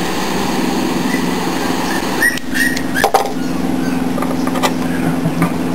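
A steady low mechanical hum, like a motor running, with a few short high chirps a little after two seconds in and a sharp click about three seconds in.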